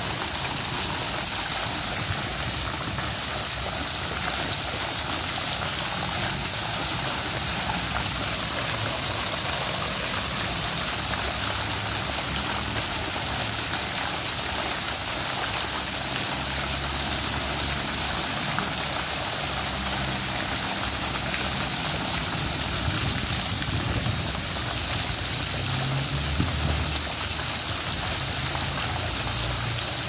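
Fountain jet splashing steadily back into its pond: a constant, even hiss of falling water.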